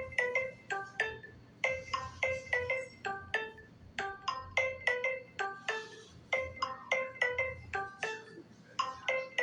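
Samsung Galaxy S6 edge+ ringtone playing: a quick melody of short, fast-fading notes, repeated in phrases with brief pauses between them.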